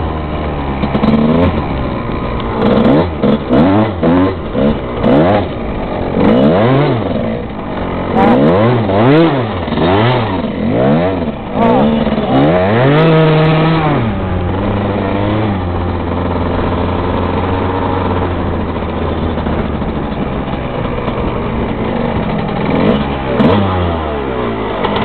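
1996 Suzuki RM125 dirt bike's two-stroke single-cylinder engine revved up and down in quick repeated throttle blips during a failed attempt at a donut in snow. It then settles to a steady low-rev run, with one more short rev near the end.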